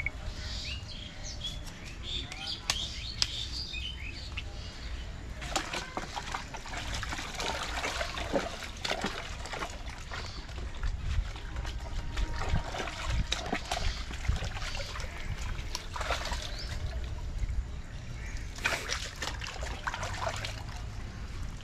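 Water sloshing and splashing in a plastic bucket as pieces of goat meat are washed in it by hand, in irregular bursts of splashes.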